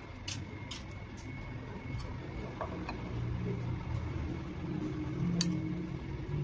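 Low, steady engine-like rumble from an unseen motor, growing a little louder about halfway through, with a few light clicks, one sharper click near the end.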